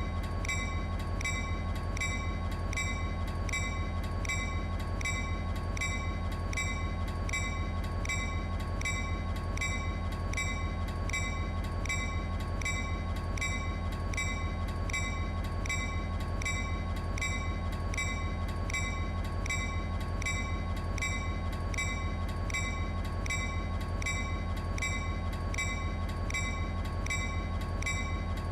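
Leslie A200 locomotive bell ringing steadily, about one and a half strikes a second, with a lingering ringing tone, over a constant low rumble.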